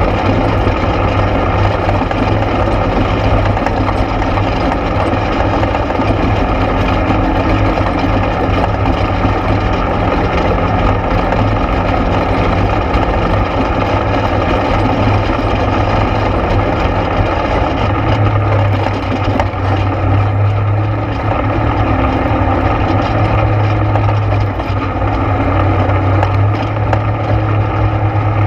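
ATV engine running under way, with a steady low drone and a shift in engine note about two-thirds of the way in.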